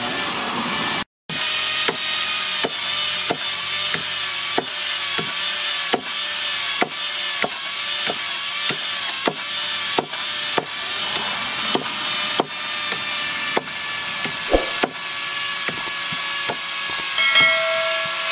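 Small hand-forged hatchet chopping into a bamboo pole: sharp woody knocks at a steady rate, about three every two seconds, over a steady hiss with a high drone.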